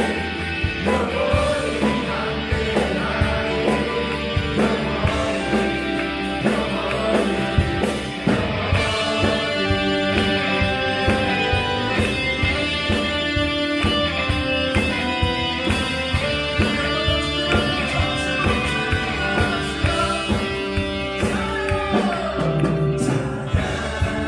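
Live worship band playing a song with singing voices and a steady beat, with a Fender Stratocaster electric guitar picked among the band.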